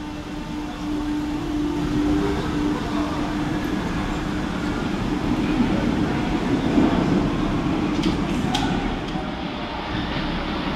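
Paris Métro MF77 train pulling out, its motors giving a steady whine that rises briefly in pitch and fades. It is followed by the rumble of a train running through the tiled station, with a few sharp clicks near the end.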